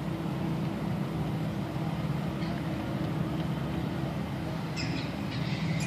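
Steady low engine drone that holds an even pitch and level, with a few faint short higher sounds near the end.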